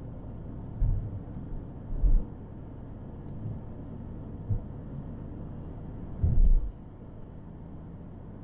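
A car driving, heard through a dashcam: a low, steady road rumble broken by four dull low thumps, the loudest and longest about six seconds in.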